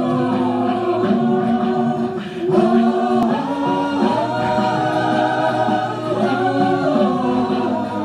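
A cappella vocal group singing sustained chords in harmony over a held bass note, the chord shifting every second or two.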